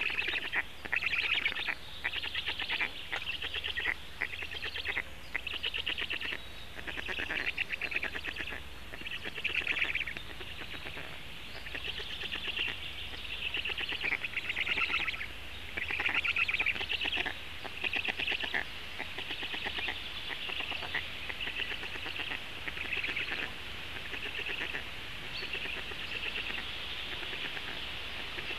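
Black stork chicks calling in the nest: rasping, pulsed calls repeated about once a second.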